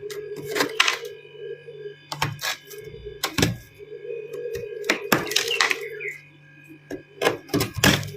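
Ice and freezer frost crunching as it is bitten and chewed close to the microphone: a string of sharp, crisp crunches in clusters, over a faint steady low hum.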